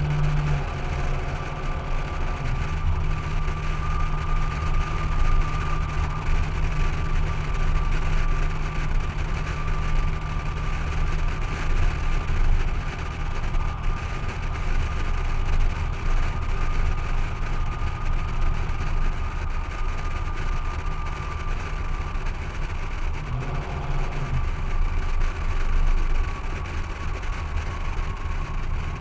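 2014 Toyota Tundra's 4.6-litre V8 cruising at steady highway speed through a stainless straight-pipe exhaust that replaces the stock muffler, with a steady drone and an even rush of wind and road noise. The engine note shifts briefly about three-quarters of the way through.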